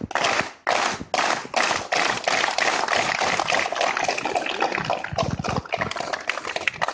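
A large group clapping, at first in unison about two claps a second, then breaking into continuous applause.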